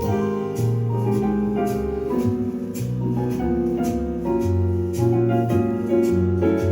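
Background music: piano chords over a bass line, with a light steady beat.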